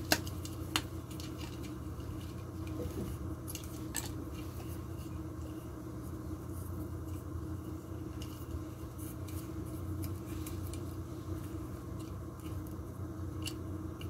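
A few sharp clicks and small knocks of the mini vacuum cleaner's plastic parts being handled during repair, over a steady low hum.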